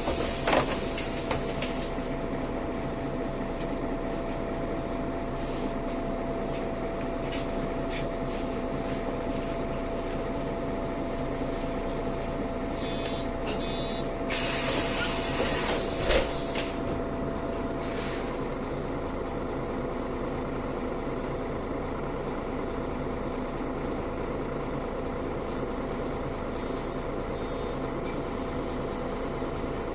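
Mercedes-Benz O530G Citaro G articulated city bus heard from inside the passenger saloon, its diesel engine running with a steady hum. A couple of short hisses of compressed air come a little before halfway, then a longer hiss with a thump.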